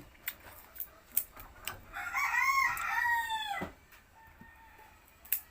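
A rooster crowing once, one long call of about a second and a half that falls off sharply at the end. A few short sharp clicks come before and after it.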